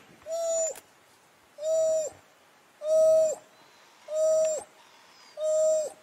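An animal's hooting call: a single steady note, each about half a second long and dropping in pitch at its end, repeated five times at an even pace of roughly one every second and a quarter.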